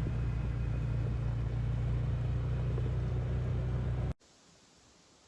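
A motor vehicle's engine running at a steady pitch, a loud low hum that cuts off abruptly about four seconds in, leaving only faint background.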